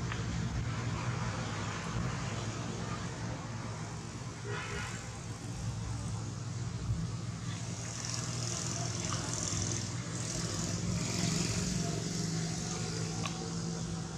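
Road traffic going by, motorbikes and cars, a steady engine hum with tyre noise. A high hiss swells for a few seconds past the middle.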